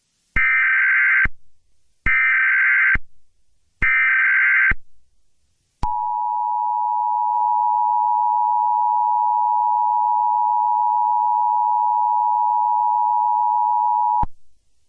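Emergency Alert System tones: three bursts of SAME header data, each about a second long with a second's gap, then the two-tone EAS attention signal held steady for about eight seconds before cutting off sharply. Together they mark the start of an emergency alert broadcast.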